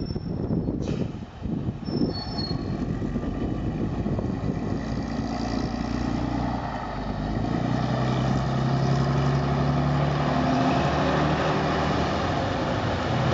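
MCW Metro-Scania single-deck bus's Scania diesel engine pulling away and accelerating past. After about seven seconds it gives way to a louder, steady bus engine drone with a low hum.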